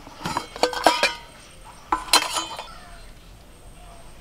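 Stainless-steel tiffin box, used as a steamer, having its lid prised open by hand: two bursts of metallic clinks with brief ringing, the first just after the start and the second about two seconds in.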